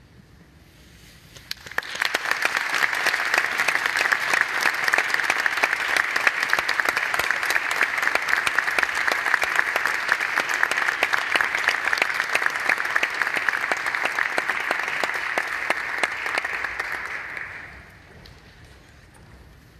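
Audience applauding: dense clapping comes in about a second and a half in, holds steady, and dies away near the end.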